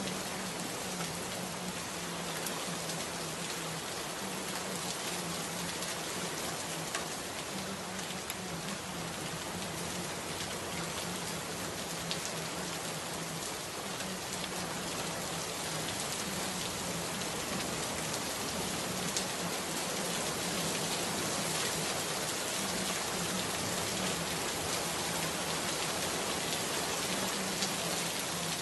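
Steady rain falling: an even hiss of drops with a few sharper drop ticks, and a faint low hum that comes and goes beneath it.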